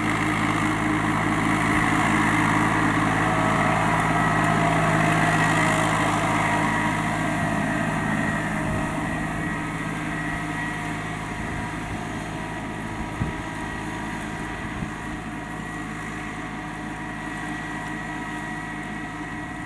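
New Holland compact tractor's diesel engine running steadily under the load of a harrow, loudest over the first several seconds as it passes close, then slowly fading as it moves away. A couple of faint clanks are heard in the second half.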